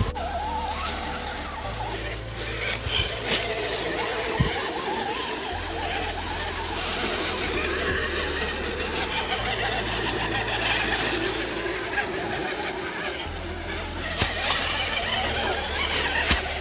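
RC rock crawler trucks running over rocks and dry leaves: small electric motors and gear drives working, with leaves rustling under the tyres and occasional sharp clicks and knocks.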